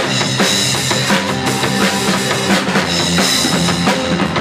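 A rock band playing live in a rehearsal room: distorted electric guitar, bass guitar and a drum kit in a steady instrumental passage between sung lines.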